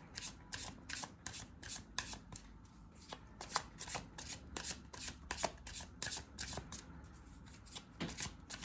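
A deck of tarot cards being shuffled by hand: quick, uneven flicks and clicks of cards sliding against each other, several a second.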